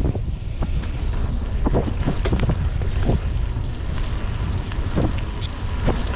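Mountain bike rolling slowly over pavement with wind rumbling on the camera microphone, and irregular light clicks and knocks from the bike as it rides.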